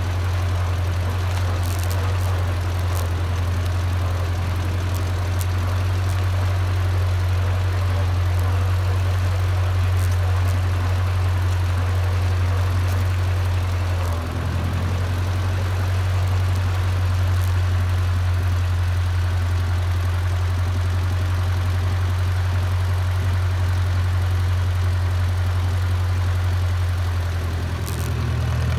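Small vintage tractor's engine running steadily under way, heard close up. It dips briefly about halfway through, and its note moves up near the end.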